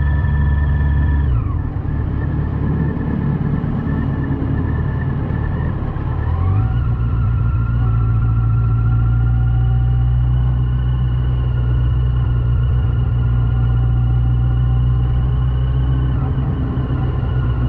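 Yamaha FJR1300AE motorcycle's inline-four engine under way. The revs drop about a second in, rise again around six to seven seconds in, then hold steady at cruising speed before easing off slightly near the end.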